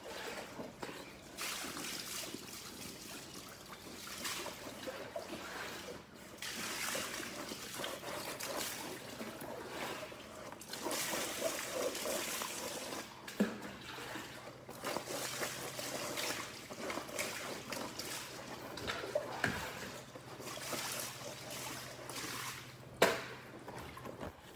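Water trickling and splashing in uneven swells, with one sharp knock near the end.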